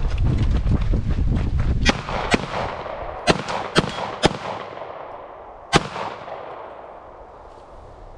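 Six handgun shots at irregular intervals over about four seconds, each sharp crack followed by a short echo. Before them come about two seconds of rumbling, clattering movement noise as the shooter runs in with his gear.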